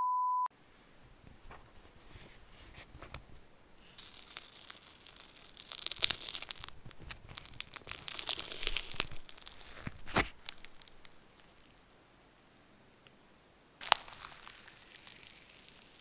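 A short steady beep at the very start, then clear slime with gold glitter and sequins being poked, stretched and squeezed by hand: soft crackling, crinkling and sharp little clicks and pops, with a near-quiet pause in the last third before the crackling starts again.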